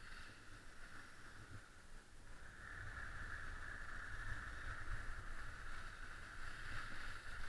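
Skis sliding over packed snow, a steady hiss that grows louder about two seconds in, over a low buffeting rumble of wind on the microphone.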